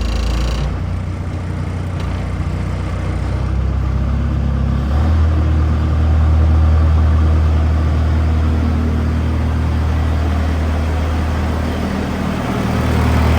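ASV RC50 tracked skid steer's engine running steadily after a fluid change and fuel-system bleed, its note rising and growing louder about five seconds in. A thin high whine at the very start stops under a second in.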